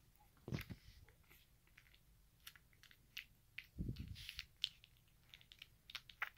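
Poodle puppy suckling hard at its mother's teat: faint, irregular smacking and clicking, with a couple of soft low thumps.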